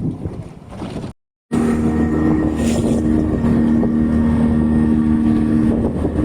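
Fishing boat's engine running steadily at a constant pitch. It starts after a short break in the sound about a second in; before the break there is only rough wind and water noise.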